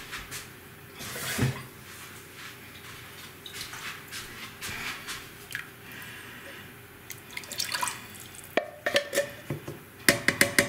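Water running and dripping as a little water is put into a carton of peeled tomatoes and swished around to rinse out the last of the tomatoes. A few sharp clicks and knocks come near the end.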